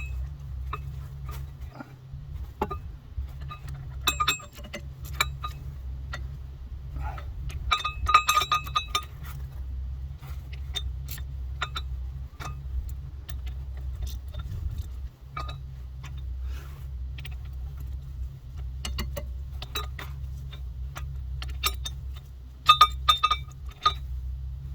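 Metal hand tools and bolts clinking and ticking irregularly while the clutch pressure-plate bolts are worked down, with brief clusters of ringing metallic jingles about 8 seconds in and again near the end. A steady low hum runs underneath.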